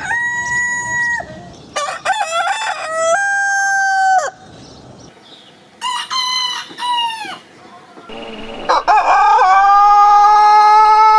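Roosters crowing one after another, four crows from different birds. The last starts about nine seconds in and is a long drawn-out crow held on one pitch.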